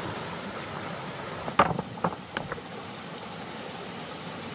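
Four sharp knocks in quick succession about halfway in, over a steady background noise.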